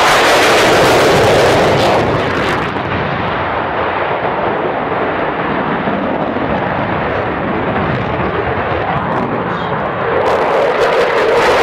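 Pair of Dassault Mirage 2000N fighter jets flying by, their single SNECMA M53 turbofans making loud, continuous jet noise. The noise eases and loses its hiss about three seconds in, then swells again near the end as the jets come close.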